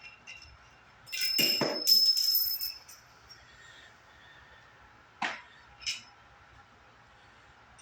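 Small steel hub parts clinking and ringing as they are handled: a loud metallic clatter with a lingering ring about a second in, then two short clinks around five and six seconds in.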